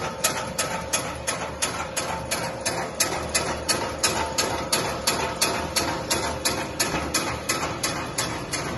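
Holac H0 21 N mobile meat dicer (1.5 kW) running, its motor humming steadily under an even, rapid clacking of the cutting mechanism at about three to four strokes a second.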